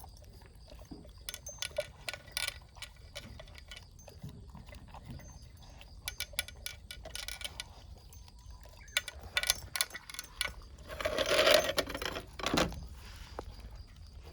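A pet eating its breakfast: scattered small clicks and clinks, like food against a bowl, with a louder scuffling noise a little after two thirds of the way in.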